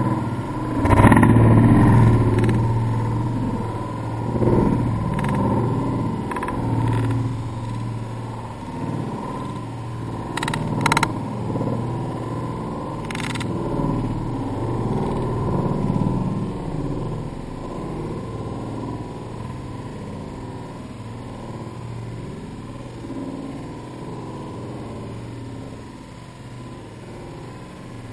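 Street traffic on a wet road: a car passes about a second in, then a steady low engine hum and road noise slowly fade. A few sharp clicks come about ten to thirteen seconds in.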